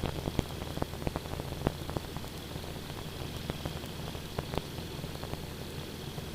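Faint aviation radio channel between transmissions: a steady hiss with scattered crackles and clicks over a low steady hum.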